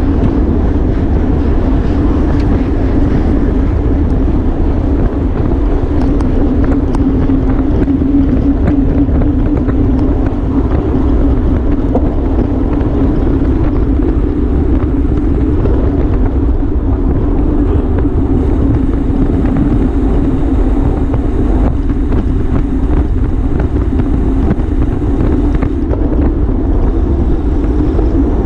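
Wind rushing over the microphone of a camera on a racing road bicycle moving at race speed, a continuous loud rush with a steady low hum underneath.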